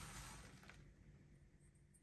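Crumbly shortcrust dough pouring from a metal bowl into a steel baking ring: a soft rustling hiss that fades out within the first second, with a light tap, then near quiet.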